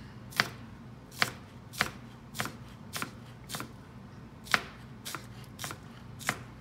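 Chef's knife slicing green onions on a plastic cutting board: about ten sharp knocks of the blade on the board, roughly two a second.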